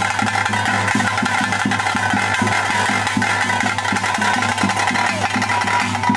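Bhuta kola ritual music: drums beaten in a quick, steady beat over a continuous droning tone.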